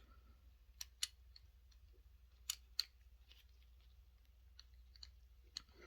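Small metal parts of a Browning 1911-22 pistol clicking as they are fitted together by hand during reassembly: sharp clicks in pairs about a second in and again midway, with fainter ticks near the end.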